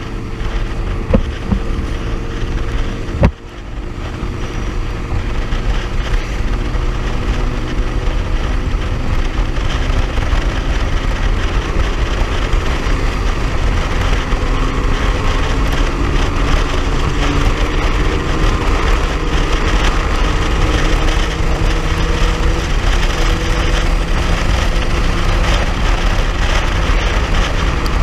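Motorcycle engine running under way, with wind on the microphone; its pitch rises slowly as the bike gathers speed, then holds steady. A single sharp knock about three seconds in.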